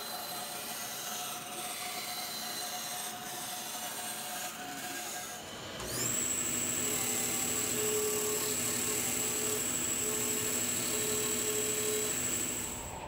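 A bandsaw cutting a curve through an MDF board, then, about six seconds in, a louder disc sander running with a steady high whine as an MDF edge is sanded against it.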